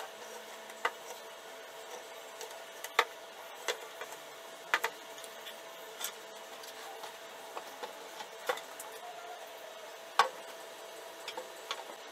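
Irregular clicks and knocks of parts and tools being handled while an electric unicycle is taken apart on a workbench, about one a second, the loudest near the start and about three-quarters of the way through, over a faint steady hum.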